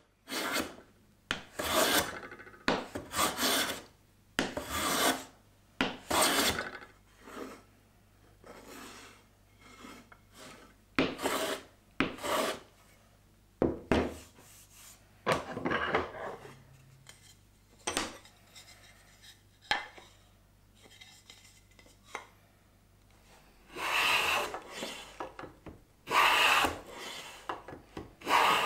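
Hand plane taking shavings off European oak: a series of separate planing strokes, about one a second at first, fainter and further apart through the middle, then loud strokes again near the end.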